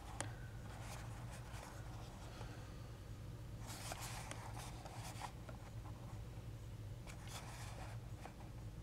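Fingers rubbing and scuffing against a small cardboard box as it is turned over in the hands: faint, scattered scratchy rustles, over a steady low hum.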